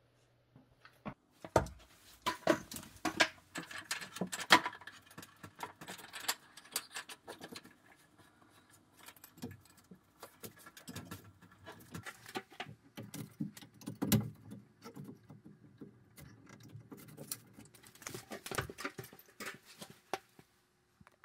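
Irregular clicks, taps and light rattles of plastic and metal plumbing pipe and fittings being handled and fitted together, with a sharper knock about four and a half seconds in.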